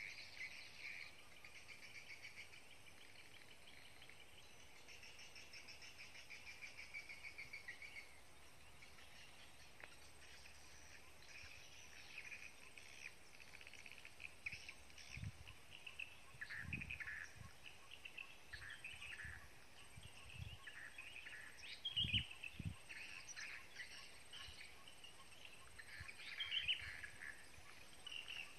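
Faint wild ambience of insects and birds: an insect trilling for the first several seconds, then scattered short bird chirps, with a few soft low thumps in the middle.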